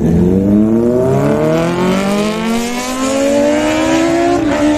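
A vehicle engine accelerating hard, its pitch climbing steadily, then dipping briefly near the end as it shifts up a gear and climbing again.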